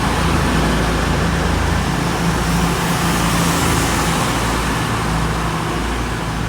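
East Midlands Railway Class 222 Meridian diesel multiple units, with their underfloor Cummins diesel engines running in a steady rumble and hum.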